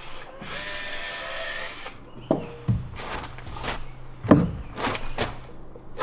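A power tool runs with a steady whir for about two seconds, then a series of about seven sharp knocks on wood follows, like hammering on the panels.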